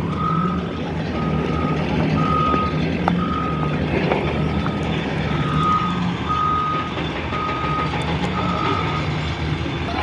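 A heavy construction machine's reversing alarm beeping about once a second, a single steady high tone, over the continuous low running of its diesel engine.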